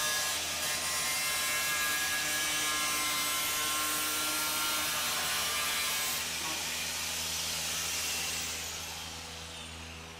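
Small handheld cutoff grinder with a thin abrasive disc cutting along the edge of a fiberglass cowling, a steady grinding whine. About six seconds in it comes off the cut, and near the end it is switched off and spins down, its whine falling.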